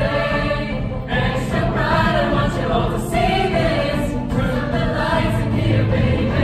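High school show choir of mixed male and female voices singing together, holding sustained notes with short breaks between phrases.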